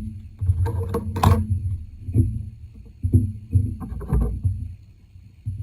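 Irregular low knocks and bumps, with brief clattering rustles about one and four seconds in, from hands and tools working at a fly-tying vise while the thread is whip-finished.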